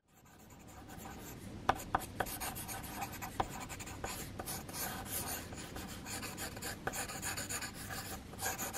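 Pencil sketching on paper: quick scratching and shading strokes with a few sharper taps of the lead. It fades in over the first second.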